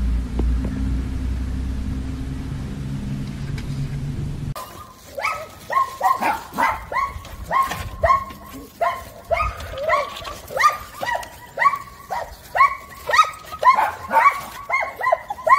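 A low steady rumble for the first few seconds. Then a small dog barks rapidly and repeatedly in high yaps, about two a second, and the barks grow louder toward the end.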